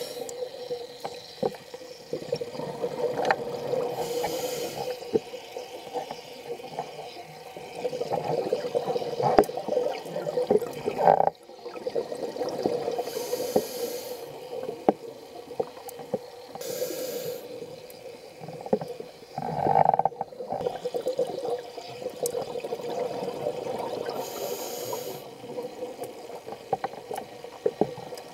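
Underwater sound of a scuba diver breathing on a regulator: bursts of exhaled bubbles every few seconds, over a steady hum and scattered sharp clicks.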